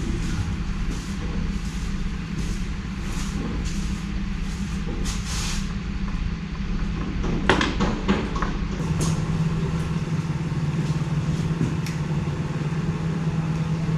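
Steady low mechanical hum that grows a little stronger about two-thirds of the way through, with a couple of sharp clinks about halfway.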